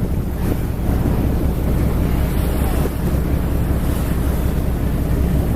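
Wind buffeting the microphone over a steady low rumble of a boat's engine and water, as on a ferry's open deck.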